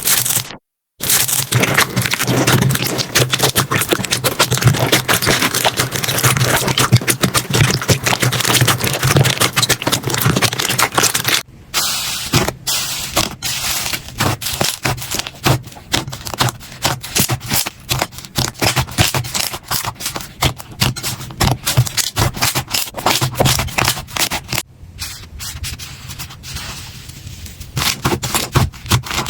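Slime being squeezed and pressed by hand, making a dense run of small clicks, crackles and pops. It breaks off briefly three times where clips are spliced together.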